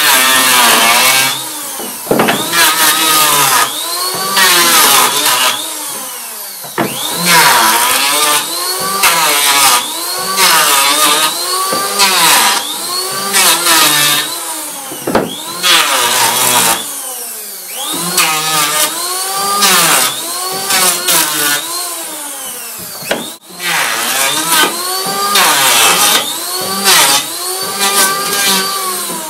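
Handheld electric power planer shaving down a wooden hurley blank in quick repeated passes, its motor pitch sagging as each cut bites and rising again between strokes.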